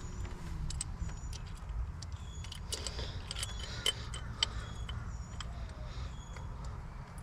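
Small metal clinks and ticks: bolts and washers being handled and fitted as a pulley is mounted on a crank damper, some clinks ringing briefly, over a steady low rumble.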